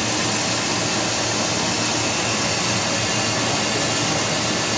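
Steady whirring noise of machine-shop machinery running, even in level throughout, with a low hum under it.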